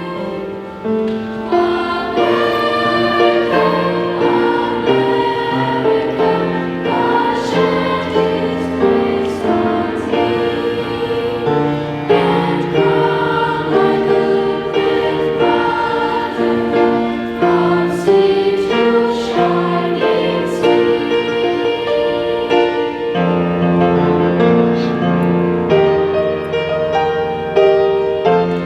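School choir singing a patriotic song in long held chords, with musical accompaniment underneath.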